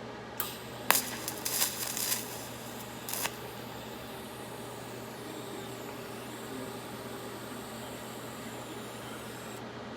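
TIG arc crackling for about three seconds as it fusion-tacks spring steel without filler wire, with a sharp click near the start. After the arc, a steady hiss and a low hum last until just before the end.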